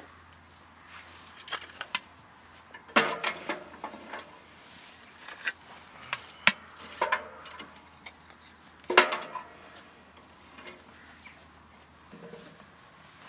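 Split firewood and kindling knocking and clattering as it is handled and loaded into a Winnerwell stainless steel wood-burning tent stove, with scattered light knocks and two louder clattering clunks that ring briefly against the metal, about three seconds in and about nine seconds in.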